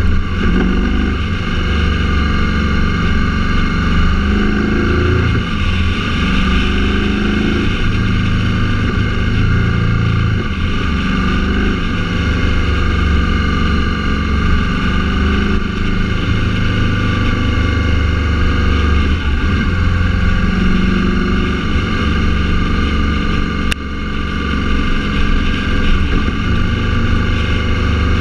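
A motor vehicle's engine running while driving, its note shifting up and down every few seconds, over steady road noise.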